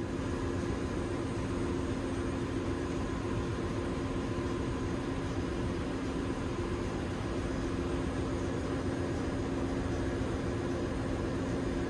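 Ship's engine-room machinery drone: a steady noise with a constant low hum, unchanging throughout.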